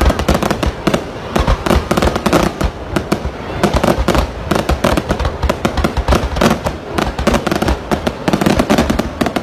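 Aerial fireworks display in a dense, continuous barrage: many overlapping bangs and crackles, several every second, with no pause.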